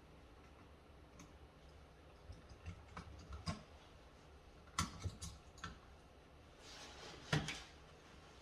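Irregular small clicks and taps of a screwdriver and copper wire against a light switch's screw terminal as the ground wire is fastened. The loudest tap comes near the end.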